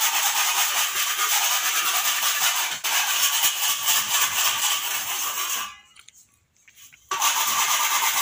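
Steady, loud hiss of a tool working on the ceiling. Just past the halfway point it cuts off abruptly for about a second and a half, then starts again.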